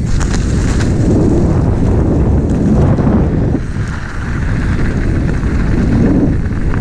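Wind buffeting the action camera's microphone as a mountain bike rolls fast over dirt and then asphalt, with tyre noise and a few sharp rattles in the first second or so.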